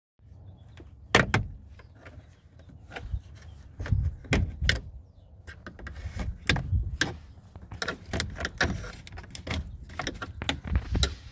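A screwdriver prying a black plastic trim piece off a Honda Odyssey van door: an irregular string of sharp clicks and knocks as the plastic and its clips come loose.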